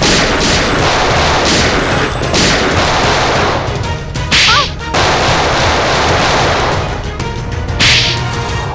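Rapid gunfire in a staged shootout: a dense run of shots with sharper, louder cracks near the middle and again near the end.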